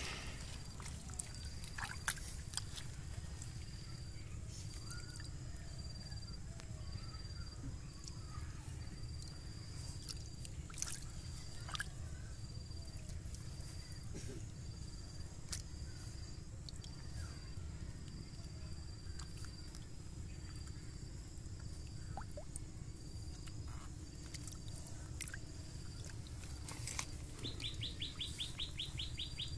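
Hands splashing and squelching in shallow muddy water while groping for fish, in short scattered sounds over a steady outdoor background with birds chirping. Near the end there is a fast rattling trill.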